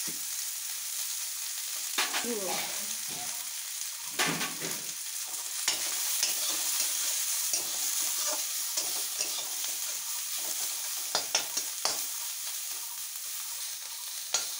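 Sliced onion, ginger and chillies sizzling in mustard oil in a metal kadai, a steady hiss, while a flat metal spatula stirs and scrapes the pan, with a few sharp clacks of metal on metal.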